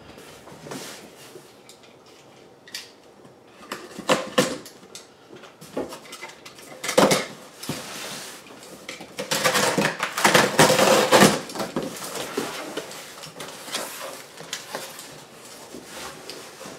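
A cardboard box being opened and handled: scattered knocks and scrapes, with a stretch of louder rustling just past the middle.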